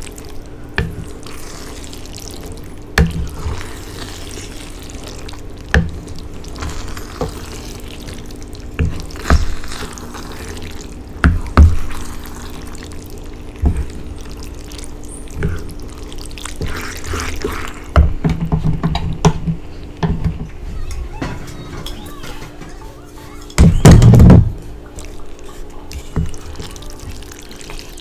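A wooden spoon stirring fettuccine through thick tomato-cream sauce in a skillet: wet squelching and sloshing with scattered knocks of the spoon against the pan, a heavier clatter late on, over a steady low hum.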